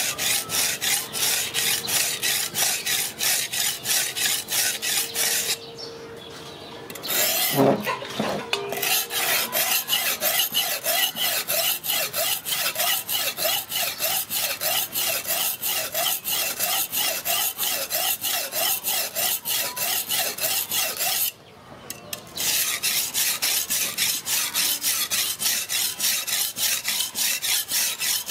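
Steel butcher's knife blade being sharpened on a wet whetstone: rapid rasping strokes, about four a second. The strokes stop twice for a second or so, once about six seconds in, followed by a single knock, and again about three-quarters of the way through.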